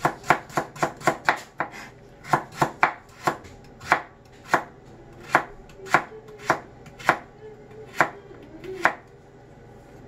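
Chef's knife chopping a carrot on a plastic cutting board: a quick run of chops, about four or five a second, then slower, uneven single chops that stop near the end.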